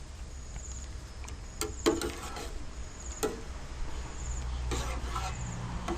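A spoon stirring coconut cream in a pot on the stove, knocking and scraping against the pot now and then, over a low steady hum.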